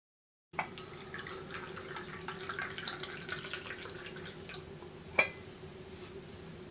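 Tea pouring from a china teapot into a porcelain teacup, a steady trickle, with a clink as the pour begins and a sharper clink about five seconds in. A faint steady hum lies underneath.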